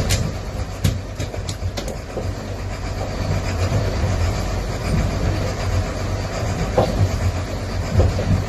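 Fishing boat's engine running steadily under way, a low rumble with rushing water and wind over it; a few sharp clicks come in the first two seconds.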